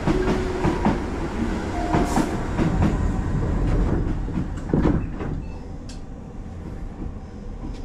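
Railway noise around a commuter train at a station: a low rumble with scattered clanks and knocks, easing off about five seconds in.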